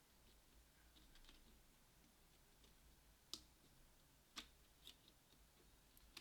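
Near silence with a few faint, sharp clicks from small parts being handled inside an opened laptop, the two clearest about a second apart in the middle.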